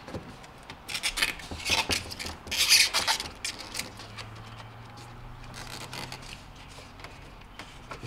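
Refrigerator wiring being pushed and tucked into place by hand against foam insulation and plastic behind the evaporator: a run of scratchy rubbing and scraping from about a second in, fading after three seconds into a quieter stretch with a faint steady hum.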